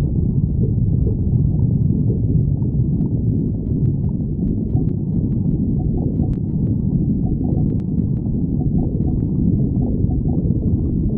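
A person's stomach growling without a break: a steady low rumble with small gurgles running through it.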